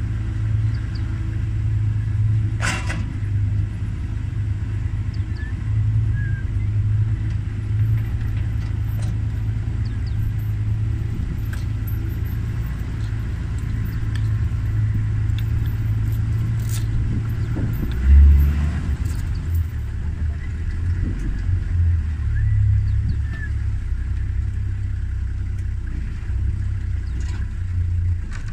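Engine of an open 4x4 safari vehicle running at low speed, a steady low rumble, as it drives through shallow water and onto a pontoon ferry. About eighteen seconds in, the engine note deepens and briefly gets louder under load as the vehicle climbs onto the ferry. There is a single sharp knock about three seconds in.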